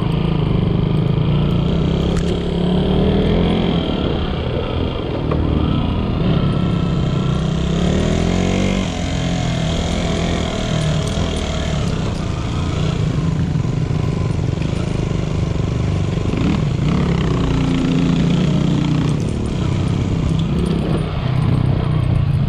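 Motorcycle engine running under load on a rough dirt trail, its pitch rising and falling as the throttle is worked, with a clear rise about eight seconds in.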